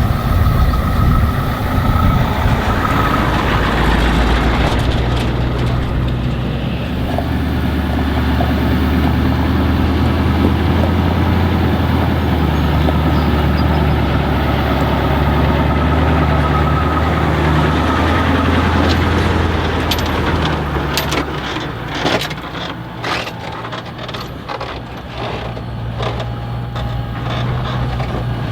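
Forage-harvesting machinery: a heavy engine runs steadily under load. Then, about two-thirds of the way through, the engine note drops back and a run of sharp knocks and clatters sets in.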